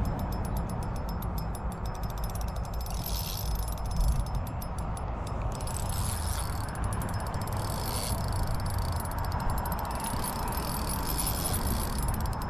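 Fishing reel being cranked as a hooked trout is reeled in: a fast, even run of light ticks that stops and restarts a few times, over a steady low rumble.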